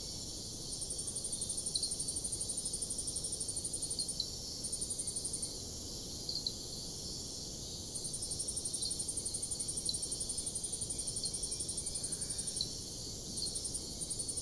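High-pitched insect trilling, like crickets, in runs of rapid pulses lasting a few seconds each with short breaks, with occasional short chirps over a faint steady hiss.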